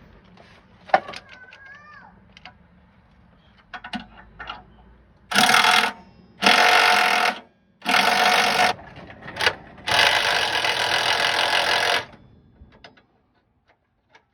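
A power tool run in several short loud bursts, the last about two seconds long, working on a seized suspension bolt.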